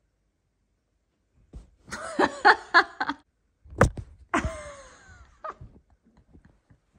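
A person laughing in short bursts, about four a second. Then a sharp knock as the Bengal cat swats at the phone, followed by a longer voice sound that falls in pitch.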